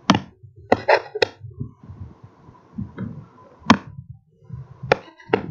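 About seven sharp clicks and taps, irregularly spaced, from a stylus writing and tapping on a tablet, over soft low thumps.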